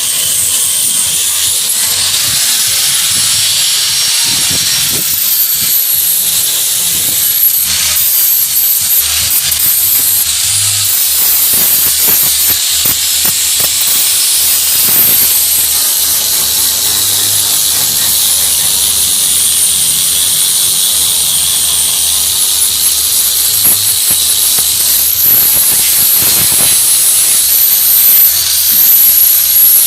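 An electric power tool working wood, running continuously: a steady hiss under a high whine that wavers slightly in pitch, with a few brief knocks.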